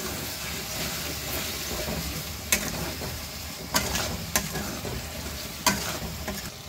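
Spiced masala paste and potato pieces sizzling in oil in a metal kadai while a spatula stirs and scrapes through them, with a few sharp clicks of the spatula against the pan. This is the masala being fried down until it releases its oil.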